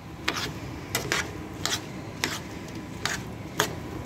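Metal spoon stirring raw mango pieces through an oily spice mix in a steel bowl, with about seven short scrapes and clinks of the spoon against the bowl.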